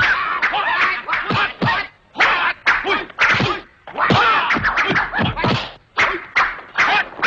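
Dubbed kung fu fight sound effects: quick flurries of punch and kick whacks and swishes, broken by short pauses.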